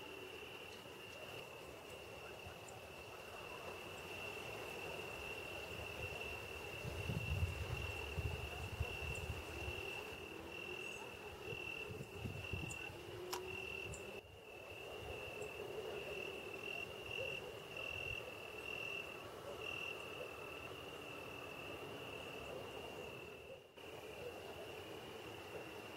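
Dull low thumps and rubbing from hands working the fabric and needle of an embroidery hoop, loudest between about 7 and 13 seconds, over a steady high-pitched tone.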